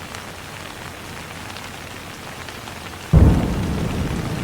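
Steady rain falling, then about three seconds in a loud, deep rumble of thunder breaks in suddenly and keeps rolling.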